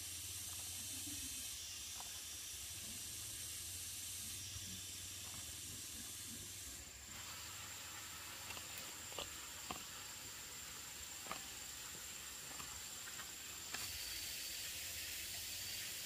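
Steady high hiss of outdoor ambience with a faint steady high tone, and a few light clicks and taps scattered through the second half.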